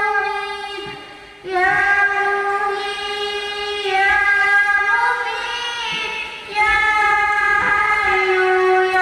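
A girl's high voice chants into a microphone in long, held melodic notes. The phrases are several seconds long, with short breaks between them.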